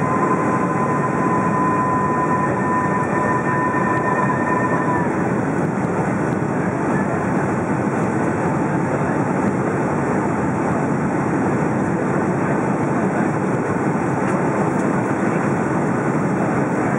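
Steady in-cabin jet noise of a Boeing 757 in flight, engine and airflow rushing together, heard from a seat by the wing. A thin steady whine rides on it for about the first five seconds, then fades.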